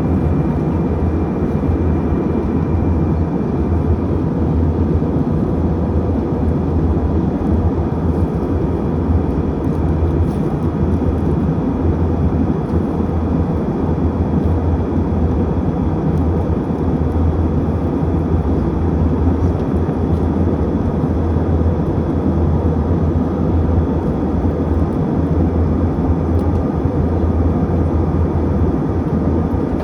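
Airliner cabin noise: a steady, unbroken drone of engines and airflow, strongest in a deep low hum, with a few faint steady tones above it.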